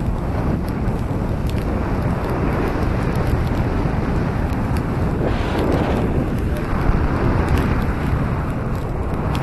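Wind buffeting the microphone on the open deck of a moving car ferry: a steady, low rushing noise.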